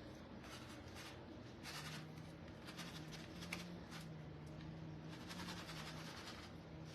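Faint scratchy rustling and light scraping of food being handled and arranged in a baking dish, over a low steady hum that comes in about two seconds in.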